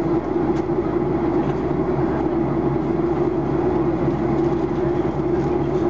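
Cabin noise of a Boeing 737-800 in flight, heard at a window seat beside the engine: the steady drone of its CFM56-7B turbofans and rushing airflow, with a constant mid-pitched hum.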